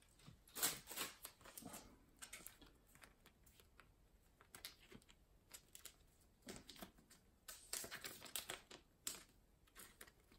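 Faint rustling and crinkling of a clear plastic card sleeve as a trading card is slid into it, in scattered short bursts with quiet gaps between.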